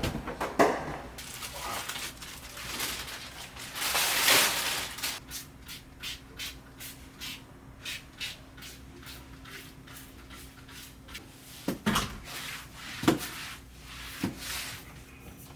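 Rubbing and handling noises with a quick series of small clicks, a brief hiss about four seconds in, and a few knocks later on.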